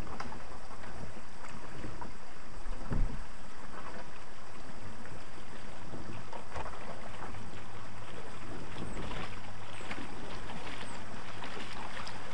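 Kayak on a creek: a steady rush of water and outdoor noise, with scattered light knocks against the hull and a louder thump about three seconds in.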